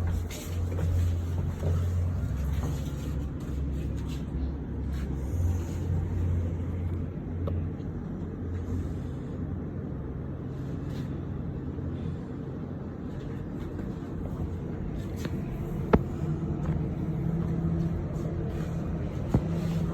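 Steady low mechanical rumble and hum whose pitch shifts in steps over the first few seconds, with two sharp clicks near the end.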